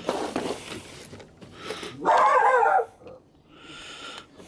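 A dog barking once, a drawn-out bark about two seconds in, with plastic bubble wrap rustling and radio sets clicking as they are handled.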